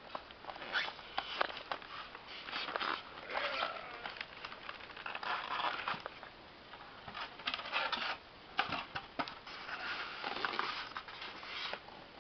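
Packaging being handled and pulled open: rustling, crinkling and scraping in irregular bursts with small clicks as a boxed collectible bust is unwrapped.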